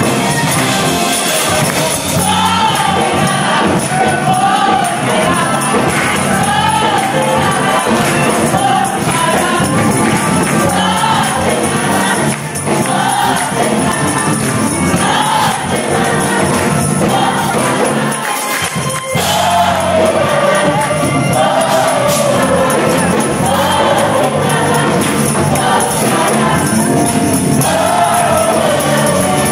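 Mixed choir of young voices singing an upbeat gospel song in a Caribbean style.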